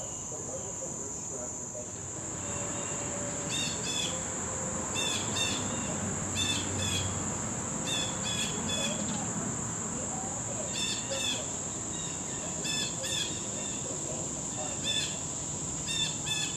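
Steady high-pitched insect drone, like summer crickets, with a bird chirping in quick pairs of short notes, repeated every one to two seconds from about three seconds in.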